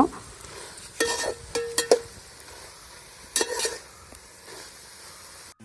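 A spoon stirring thick vegetable-and-coconut aviyal in a pan, with a few scrapes and clinks against the pan, over a faint sizzle of the vegetables cooking.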